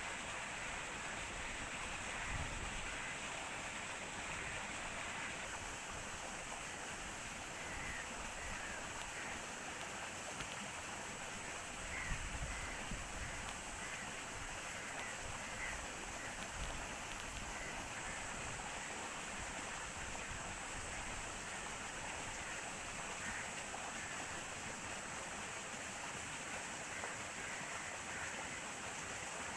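Steady outdoor hiss with a bird calling in short, faint chirps, repeated on and off through the middle; a couple of soft low thumps.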